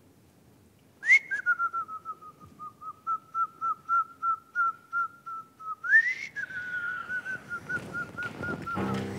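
Whistling in two long warbling phrases. Each opens with a quick upward swoop, then holds one high pitch with a fast, even pulsing wobble, the second starting about six seconds in.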